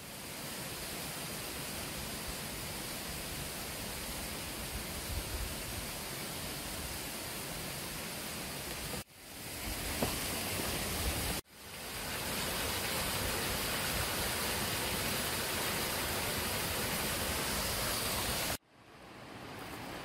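Mountain stream rushing over boulders, a steady rush of water. It cuts out abruptly three times, about nine seconds in, at about eleven and a half seconds and near the end, and fades back up within a second each time.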